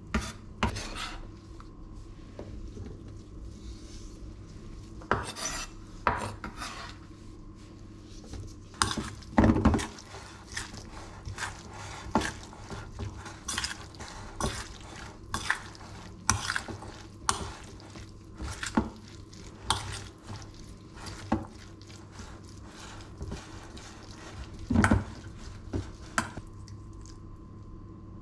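A knife tapping on a wooden cutting board at the start, then a metal spoon stirring chopped salad in a stainless-steel mixing bowl, with irregular clinks and scrapes against the bowl. Two knocks stand out, about ten seconds in and again near the end.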